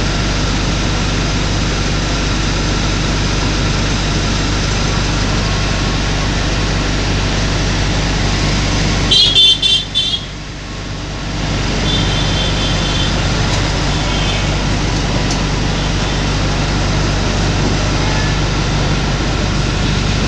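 Steady engine-like rumble of traffic, with a short, loud, high-pitched toot like a horn about nine seconds in, followed by a brief drop in level and two fainter toots a few seconds later.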